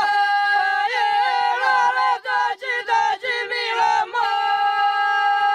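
Three women singing ojkavica, traditional unaccompanied folk singing from the Dalmatian hinterland. Their voices move together through short bending, stepping phrases, then about four seconds in settle onto one long held note.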